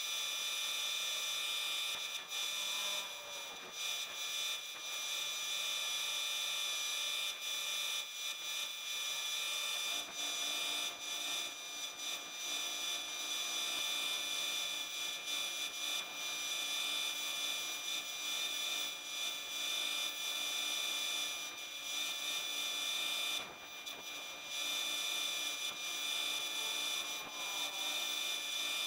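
Belt grinder running steadily while micarta knife scales are pressed against the moving belt, sanding their edges. The sound dips briefly a few times, and a lower hum joins about a third of the way in.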